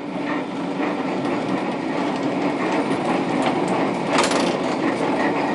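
Tram running on street track: a steady rumble and rattle of wheels over the rails, with a brief louder clank about four seconds in.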